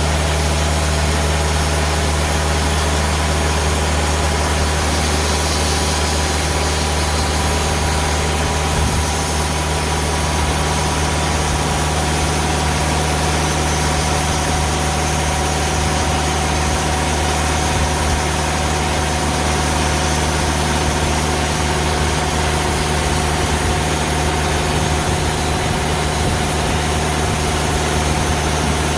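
Diesel engine of a TimberKing 2000 band sawmill running steadily, with the band blade working through a large ash log.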